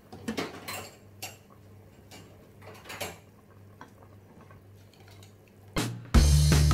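Glass pot lid and a ladle clinking and scraping against a cooking pot of simmering pork ribs, in a few scattered knocks. Loud background music starts near the end.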